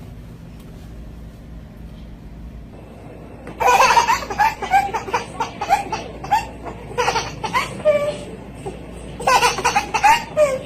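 A baby laughing in quick, high-pitched repeated bursts that start about three and a half seconds in, in two bouts with a short pause between them. A low steady hum comes before the laughter.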